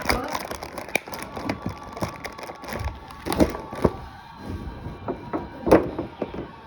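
Crackling and clicking of plastic packaging being handled as a small die-cast figure is worked out of its tray, with a couple of sharper snaps about halfway and near the end.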